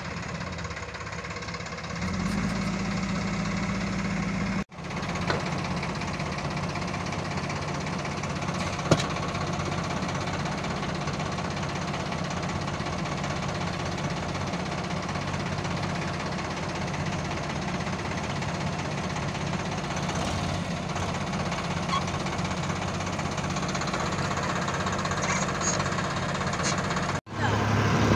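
Diesel engines of a farm tractor and a JCB 3DX backhoe loader running steadily under load while the backhoe's bucket pushes the tractor's loaded trolley out of deep mud. The sound drops out briefly twice, and there is a single sharp click early on.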